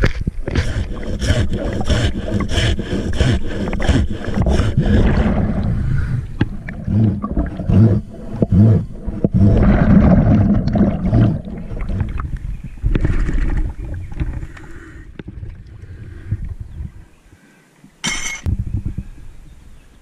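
Water sloshing and bubbling around a diver's camera as it goes under the lake surface, with loud, muffled, rumbling bursts of scuba exhaust bubbles. The sound dies away over the last few seconds, and there is one brief sharp sound near the end.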